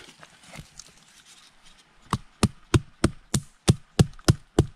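Wooden stake being knocked into the forest floor with a split piece of wood used as a mallet: a steady run of sharp wooden strikes, about three a second, starting about two seconds in after some quiet rustling.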